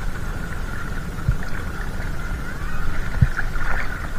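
Shallow seawater sloshing around a camera carried at the water's surface by someone wading, with a steady low rumble and two soft thumps.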